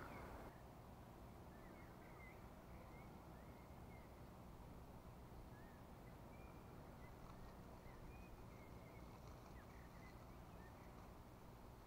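Near silence: faint, scattered short bird chirps over low, steady outdoor background noise.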